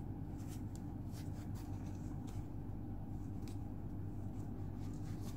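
Faint handling noise: light clicks and rustles as a foam windscreen is worked onto a BM800 condenser microphone seated in its plastic shock mount, over a steady low hum.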